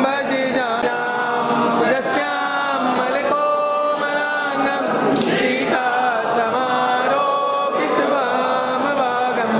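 Several voices singing a devotional aarti chant together, in a continuous melodic line with held notes.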